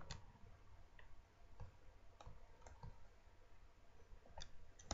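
Faint scattered clicks and ticks from a folded sheet of lined paper being handled, about one every half second, over near silence.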